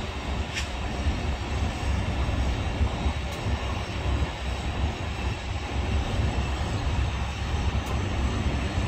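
Union Pacific 4014, a Big Boy steam locomotive, running at speed: a steady heavy rumble with hiss, with no distinct chuffs, heard from a vehicle pacing alongside with low wind buffeting on the microphone.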